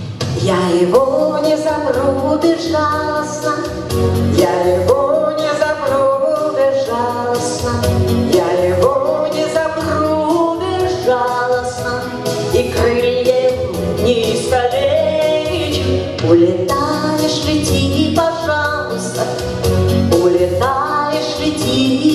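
Music: a song sung over instrumental accompaniment, the melody line gliding and held without clear words.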